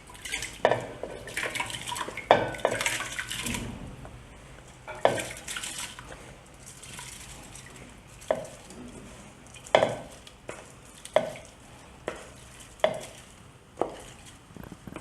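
Water poured into a pot of fried basmati rice, a rushing hiss over the first few seconds, then a spoon stirring the rice and knocking sharply against the pot about six times.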